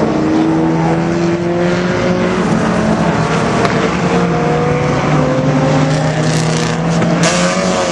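Engines of several small enduro race cars running at speed around an oval track, their sounds overlapping, with pitches climbing slowly as they accelerate.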